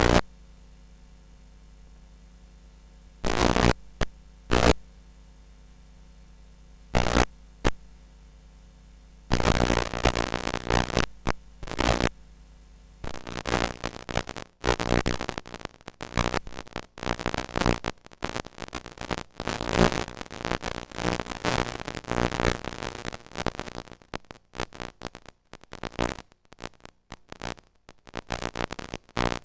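Videotape playback noise. A low steady hum is broken by a few loud bursts of crackling static, and about halfway through it turns into continuous, irregular crackle and hiss as the recording gives way to blank tape.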